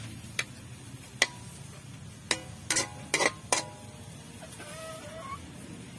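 A metal spatula clanking against a steel wok while stir-frying pork pieces over a wood fire: about six sharp, ringing metallic knocks, most of them bunched in the middle, over a low background. A short, faint animal call follows near the end.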